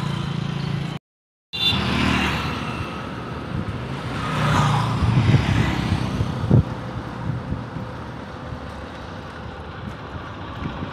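Motor vehicle engine running with road noise, swelling as traffic passes around the middle and with a sharp thump partway through; the sound cuts out briefly about a second in.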